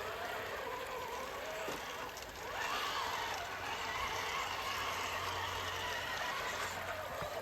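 Electric motor of an RC Toyota 4Runner scale truck whining as it drives, the pitch wavering with the throttle. About two and a half seconds in it rises in pitch and gets louder as the throttle opens.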